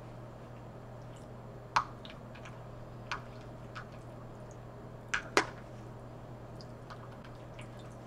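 A fork clicking and tapping against a plastic takeout tray while pasta is twirled: a handful of sharp, separate clicks, the loudest two about two seconds and five and a half seconds in, over a faint steady hum.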